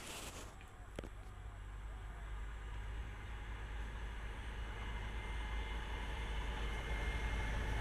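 Approaching train: a low rumble that grows steadily louder as it nears.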